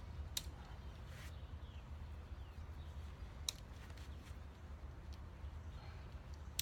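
Plastic tent clips snapping onto the tent poles: two sharp clicks about three seconds apart, with a few softer handling sounds, over a low steady rumble.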